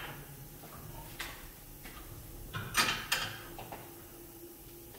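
Steel pipe clamps being tightened by hand on a glued-up end grain board: a few sharp metal clicks and knocks, one about a second in and the loudest pair close together near three seconds in.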